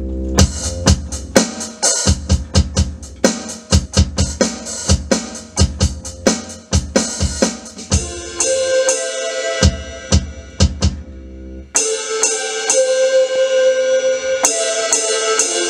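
Alesis Command mesh electronic drum kit played through its sound module on a preset where each kick-pad hit also sounds a bass-guitar note, under a steady run of snare, tom and cymbal hits. About twelve seconds in the low bass drops away and sustained pitched tones take over, as a different preset sounds.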